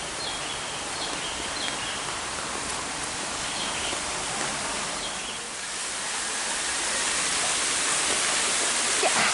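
Rushing water of a waterfall, a steady hiss that grows louder and brighter about halfway through, with faint short chirps in the first half.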